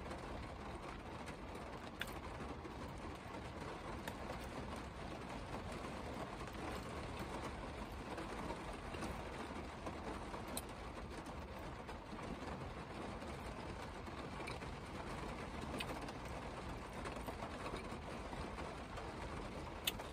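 Steady rain on the roof of a parked car, heard from inside the cabin, with a few sharper clicks of single drops.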